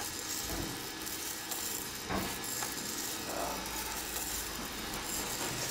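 Gene Cafe coffee roaster running: beans tumbling in its rotating drum with a steady rushing rattle, a few faint clicks among it.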